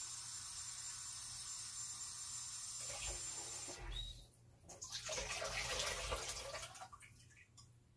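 Tap water running while radish microgreens are rinsed under it. The flow stops about four seconds in, runs again for a couple of seconds, then shuts off near the end.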